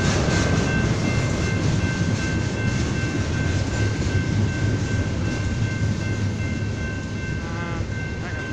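Double-stack intermodal freight train rolling past close by: a steady heavy rumble of the cars, with the wheels clattering rhythmically over rail joints. A steady high ringing tone runs over the top, and the sound eases slightly near the end.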